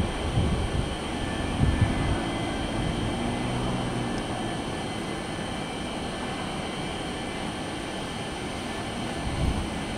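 McDonnell Douglas MD-83's two rear-mounted Pratt & Whitney JT8D turbofan engines running at low power as the jet taxis: a steady jet whine over a low, uneven rumble.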